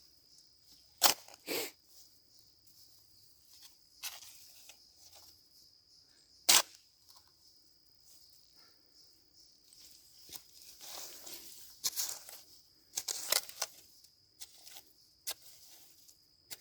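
Shovel work in garden soil: sharp knocks and scrapes of the blade, with dirt being tossed back in around a freshly planted elderberry bush, heaviest near the end. A faint steady high-pitched tone sits underneath.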